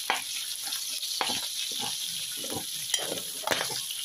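Cubed pork, garlic and sliced onions sizzling in hot oil in a metal wok, with a metal spatula stirring and scraping against the pan several times.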